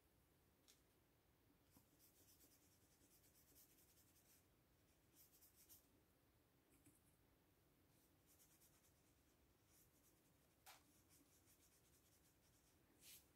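Near silence with faint, scratchy strokes of a paintbrush working watercolour from the paint pans and across paper, several short strokes in a row, and a couple of light taps near the end.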